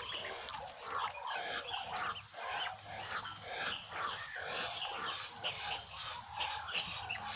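Muscovy ducklings peeping as a flock, many high chirps overlapping continuously.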